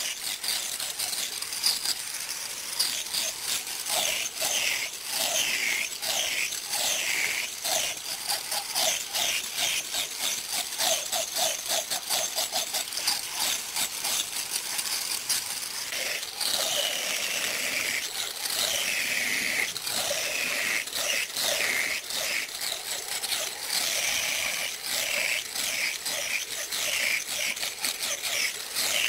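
Handheld angle grinder with an abrasive disc grinding into wood: a continuous rough, crackling scrape over the motor's whine, whose pitch repeatedly slides down and recovers as the disc is pressed in and eased off.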